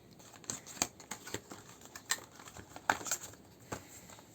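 Irregular light clicks and taps of a tablet box and its accessories being handled.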